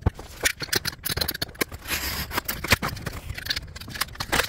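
A memory module's packaging being opened and handled: a quick run of sharp clicks, snaps and scraping rustles.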